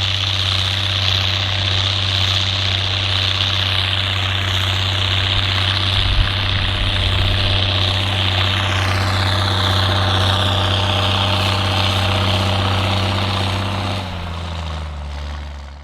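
Heavy engine running steadily at one speed, with a strong high whine over a deep hum. The whine falls in pitch about nine seconds in, and near the end the engine note drops lower before the sound fades out.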